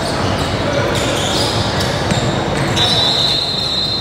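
Basketball bouncing on a hardwood gym floor with scattered thuds, over a hubbub of players' and spectators' voices echoing in a large gym. A high squeak comes in near the end.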